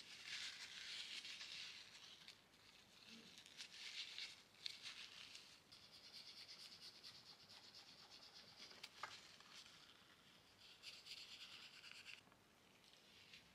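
Faint scratchy rubbing of oil pastel being worked in strokes. After a few uneven strokes comes a steadier run of quick back-and-forth strokes, which stops near the end.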